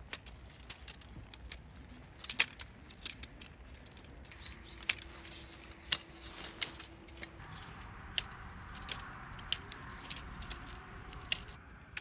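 Irregular sharp clicks and light metallic clinks of small objects being handled, with a soft hiss in the second half.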